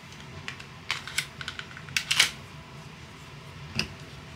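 Light clicks and clacks of a Glock pistol's parts being handled: scattered small clicks, a quick run of them, a louder sliding clack about two seconds in and another near the end.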